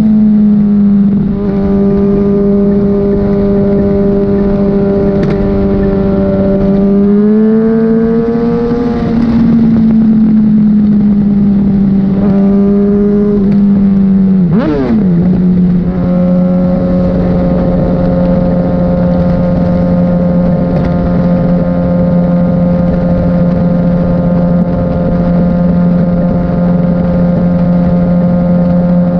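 Litre-class sport bike engine cruising steadily, with wind noise underneath. The engine pitch climbs for a couple of seconds about a quarter of the way in and settles again; about halfway there is a quick jump and drop in pitch, after which the engine holds steady at a lower pitch.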